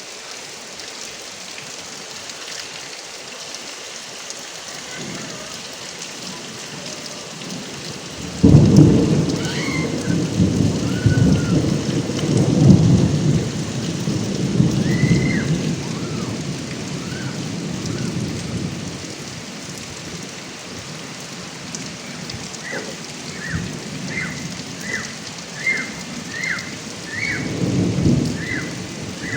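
Steady rain pouring off a roof spout, with a sudden loud thunderclap about a third of the way in that rumbles away over several seconds, and a second, softer rumble of thunder near the end.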